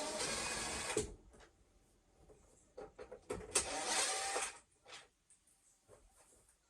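A small electric motor whirring in two bursts of about a second each, with clicks and knocks of handling between them.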